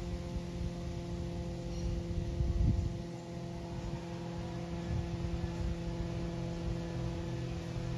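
Distant single-engine propeller plane droning overhead: a steady hum with a few fixed tones over a low rumble, with a short louder rumble about two and a half seconds in.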